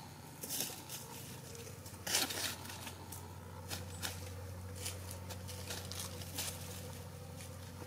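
Bantam chickens preening and shifting on dry leaf litter: irregular rustling and crinkling of feathers and dry leaves, the loudest rustle about two seconds in, over a steady low hum.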